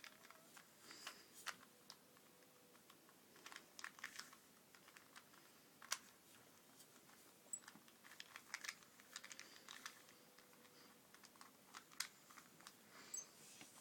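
Faint, irregular plastic clicks in small quick clusters from a 2x2x3 tower cube puzzle being turned by hand.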